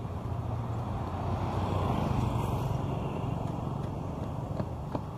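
Street traffic on a city boulevard: a steady rumble of road vehicles, swelling to a peak about two seconds in as a vehicle passes close by, then easing off, with a couple of light clicks near the end.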